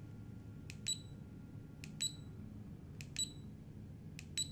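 Four presses of the SELECT button on a NITTO KOHKI brushless electric screwdriver's parameter panel, about one a second, each a sharp click followed by a short high-pitched confirmation beep as the setting steps to the next function number.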